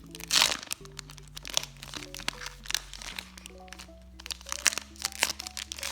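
Foil booster-pack wrapper crinkling and crackling as it is torn and worked open by hand, a loud burst about half a second in and then many short crackles, over background music with steady held notes.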